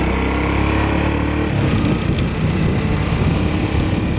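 Motor scooter engine running while it is ridden, with a steady hum that turns to a rougher rumble about a second and a half in, mixed with wind noise on the microphone.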